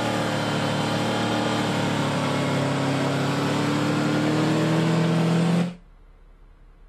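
Car engine revving hard and held high, its pitch creeping slowly upward, as the car is driven hard to get out of snow. The sound cuts off abruptly near the end.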